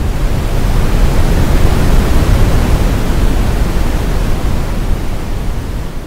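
Brown noise from a web-based noise generator: a steady noise with no pitch, strongest in the deep bass and thinning toward the treble. It fades down near the end as the volume is lowered.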